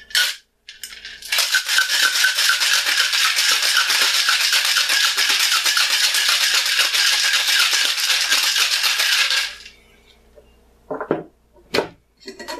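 Ice cubes rattling hard inside a Boston shaker (glass seated in a stainless steel tin), shaken steadily for about eight seconds. Near the end come two sharp knocks on the shaker as the glass and tin are parted.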